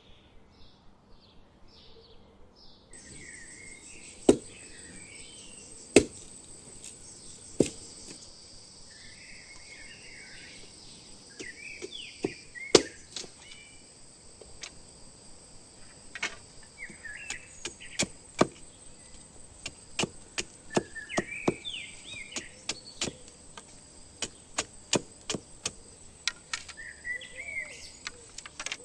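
Sharp knocks of a tool chopping into wood, a few spread out at first, then coming several a second through the second half. A steady high insect drone starts about three seconds in, with birds chirping.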